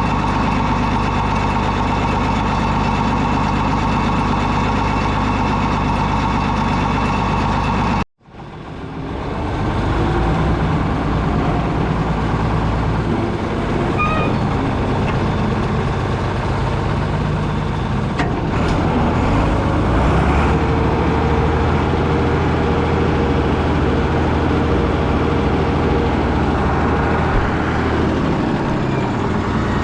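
Deutz D130 06 tractor's diesel engine running steadily. About eight seconds in the sound drops out for a moment and fades back in, after which the engine runs on with a somewhat different, shifting tone.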